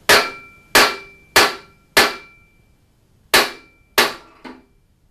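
Hammer tapping a bearing onto the shaft end of a ball screw through a block slid over the shaft. Seven sharp blows, each with a short ring: four about two-thirds of a second apart, a pause, then two more and a lighter last one.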